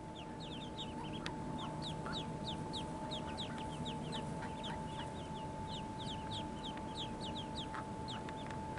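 Mallard ducklings peeping: a run of short, high, downward-slurred peeps, several a second, kept up without a break, over a faint steady tone.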